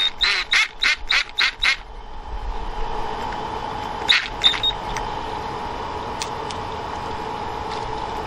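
Drill boring slowly through a metal guide plate into a broken-off door hinge screw: a quick run of short squeaky chirps from the bit for the first two seconds, then the drill running steadily at low speed, with two more squeaks about four seconds in.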